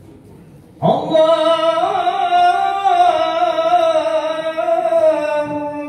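A man singing a shalawat solo into a microphone, an Arabic devotional chant in praise of the Prophet. After a short quiet he comes in sharply about a second in and draws out one long, ornamented note that wavers slowly in pitch.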